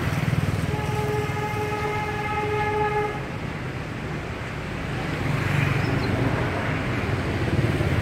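A vehicle horn sounds one long, steady note for about two seconds, starting just under a second in, over the steady low rumble of street traffic.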